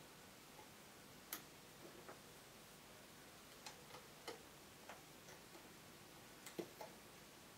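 Scattered faint clicks and taps of a loom hook and rubber bands against the plastic pegs of a loom board, over near silence. The sharpest click comes a little over a second in, and a few more come close together near the end.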